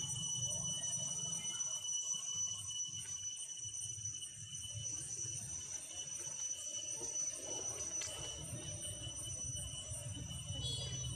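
Insects droning in steady high-pitched tones, over a low, uneven rumble.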